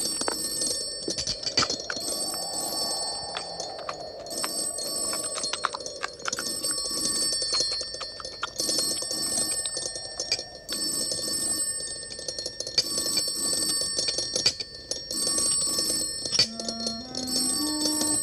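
Telephone bell ringing on and on in repeated bursts with short gaps. A few stepped musical notes start near the end.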